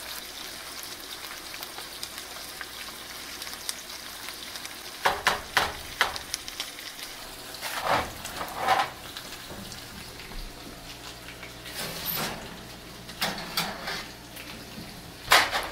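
Rice sizzling in a hot cast iron skillet as a spoon stirs it, with a steady frying hiss. From about five seconds in, several loud clatters and crinkles break in as the pans and foil are handled.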